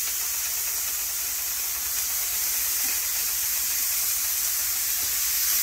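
Bacon-wrapped green onions sizzling on the hot ribbed plate of an electric contact grill: a steady hiss.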